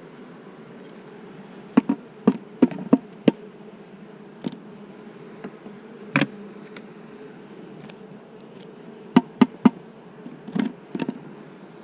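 Honeybees buzzing steadily from an open hive, a low, even hum. Sharp clicks and knocks come through it: a quick cluster about two seconds in, one about six seconds in, and another cluster near the end.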